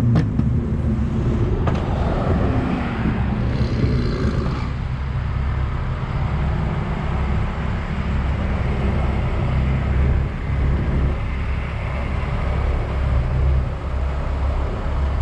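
Car engine running steadily at low revs as the car rolls out slowly, a deep even drone with some road noise.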